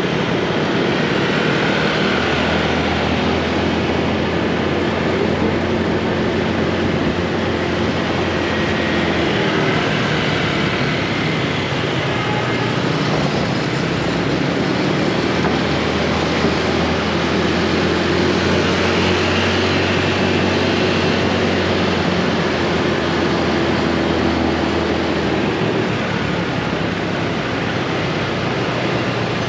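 Motorbike engine running steadily while riding through city traffic, under a steady wash of road noise, its note shifting slightly now and then.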